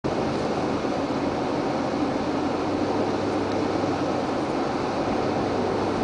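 Steady engine and tyre noise inside the cabin of a vehicle driving on a snow-covered highway.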